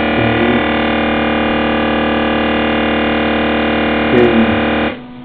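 Behringer X1204USB mixer putting out a loud, steady buzz, a dense stack of fixed tones, while its effect is added to channel 1, a fault the owner cannot explain. It cuts off suddenly about five seconds in, leaving a quieter mains hum.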